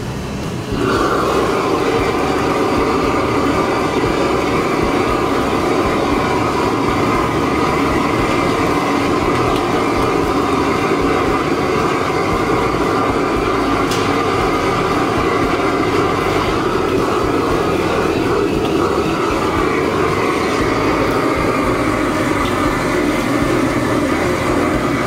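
High-pressure gas wok burner lit about a second in, then burning with a loud, steady roar.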